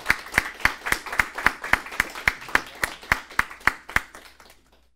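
Audience applause, led by one set of loud, even hand claps at about four a second, dying away shortly before the end.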